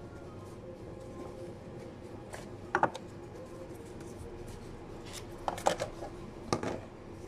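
Gloved hands handling white packaging: short rustles and clatters in three bursts, one near the middle and two more close together near the end, over a steady low hum.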